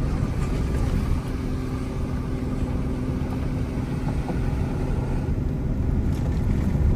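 Steady in-cabin drone of a vehicle driving on a dirt and gravel road: engine hum with tyre and road noise.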